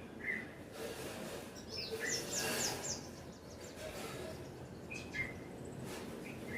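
Birds chirping: scattered short calls, with a quick run of about five high, falling notes about two seconds in, over a steady outdoor background hiss.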